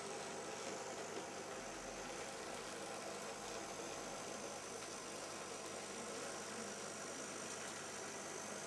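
Z scale model freight train running along the track: a steady whir from the small locomotive motor and the wheels.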